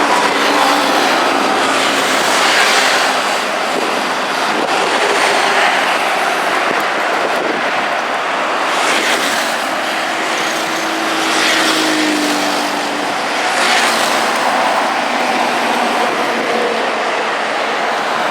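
Heavy city street traffic: a steady rush of cars and trucks driving by at low speed. Several vehicles pass one after another, each swelling and fading over the constant noise.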